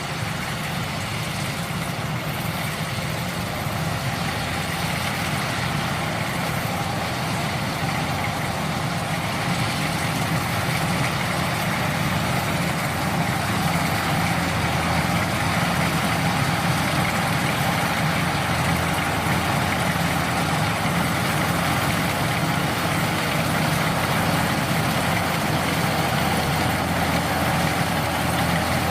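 Kubota DC-105X rice combine harvester's diesel engine running steadily, its hum growing gradually louder over the first half.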